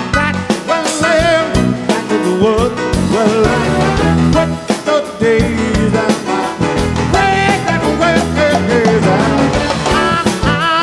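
Live band music: an upbeat piano-led boogie with bass guitar, drums and keyboards, and a man singing lead over it.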